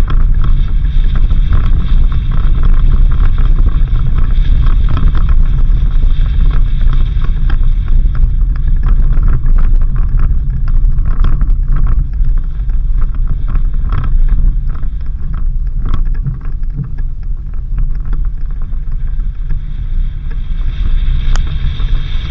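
Suzuki Jimny driving along a rough dirt road: a loud, steady rumble of engine and tyres with many small knocks and rattles, easing a little in the last few seconds.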